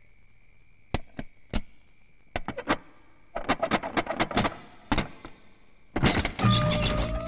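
Metallic clicks and clanks of a heavy old iron door bolt and lock being worked, a few single knocks and then a quicker cluster of rattles. About six seconds in, loud music comes in.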